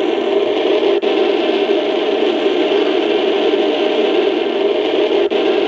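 A 1/16-scale M60 RC tank's sound-effect unit playing a steady engine running sound through its small speaker, with two brief dropouts, about a second in and near the end.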